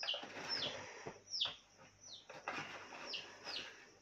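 A bird chirping: about six short chirps that each fall quickly in pitch, spaced unevenly over four seconds.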